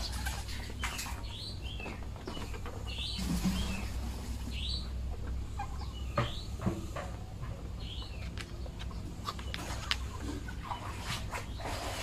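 Muscovy ducks feeding from a plastic basin of grain, their bills clicking and tapping at the feed, with short, high chirps that fall in pitch scattered throughout.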